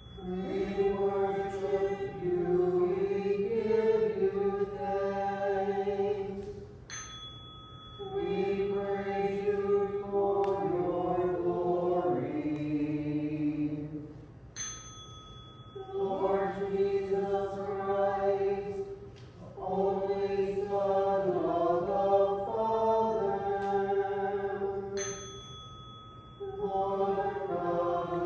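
Voices singing a chant-like liturgical piece in long held phrases of several seconds, with short pauses between them.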